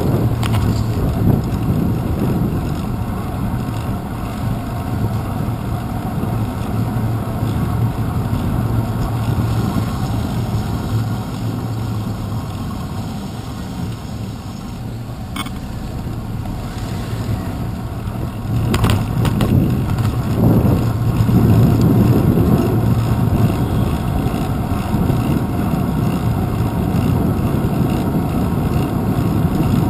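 Low, steady rumble of wind and road noise on a bicycle's handlebar-mounted GoPro riding through city traffic, with a few sharp knocks around the middle.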